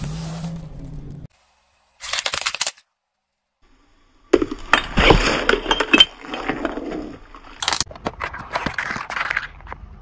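A car tyre rolling over and crushing things in a string of short clips: crunching, cracking and crackling bursts with dead silence between them. The loudest stretch comes about four to seven seconds in, as a watermelon splits and bursts under the wheel.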